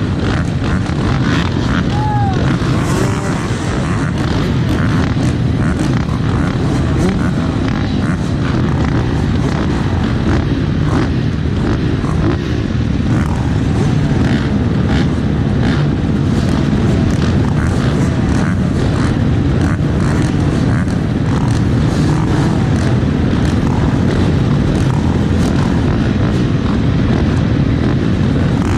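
Motocross dirt bike engine running, loud and steady, with many short crackling clicks throughout.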